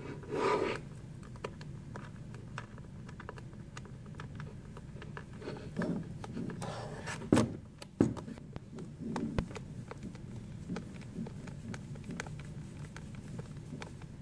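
Hand screwdriver turning screws into a plastic electric can-opener housing: small clicks and rubbing of the tool and screws, with two sharp knocks about seven and eight seconds in as the housing is handled.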